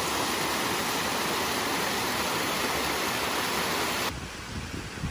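Small woodland waterfall, water splashing down rock ledges in a steady rush. About four seconds in, the rush drops suddenly to a quieter level.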